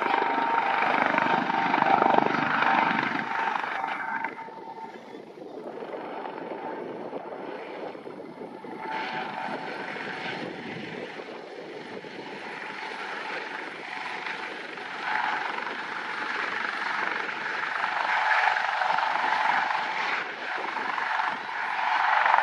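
Eurocopter AS365 Dauphin twin-turbine helicopter flying low: rotor noise with a steady whine from its turbines and enclosed fenestron tail rotor. It is loudest in the first few seconds and again near the end, and quieter in between.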